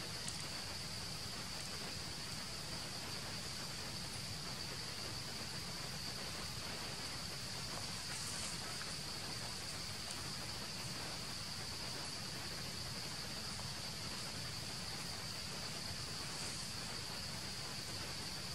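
Steady, high-pitched insect chorus holding one constant pitch, over a faint outdoor hiss.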